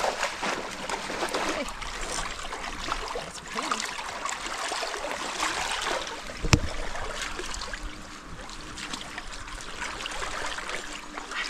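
River water splashing and swirling around a wading angler as a hooked sockeye salmon is played in close. A single sharp knock about six and a half seconds in.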